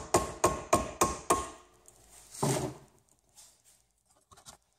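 Hammer blows on a screwdriver set against a microwave oven transformer's copper winding, driving the copper out of the steel core: about five sharp metallic strikes, a little over three a second, each with a brief ring, stopping in the first second and a half. A short scrape follows about halfway through, then a few faint taps near the end.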